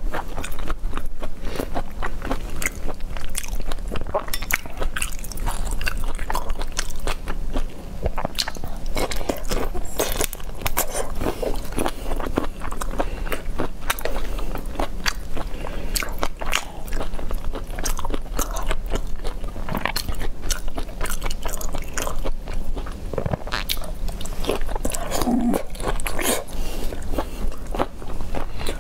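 A person chewing and biting into shell-on shrimp in chili sauce, with a steady run of irregular crunches and wet clicks, picked up close by a lapel microphone.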